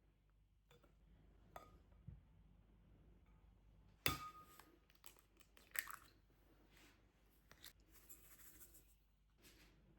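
Quiet handling of small objects: scattered light taps and rustles, a sharp clink with a brief ring about four seconds in, and another knock just before six seconds.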